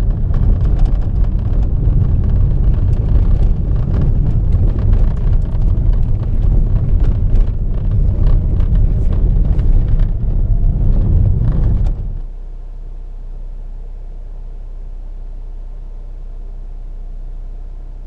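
Car driving on a gravel road, heard from inside the cabin: a loud low tyre and road rumble with stones clicking and pinging against the car. About twelve seconds in it drops abruptly to a quiet, steady low hum.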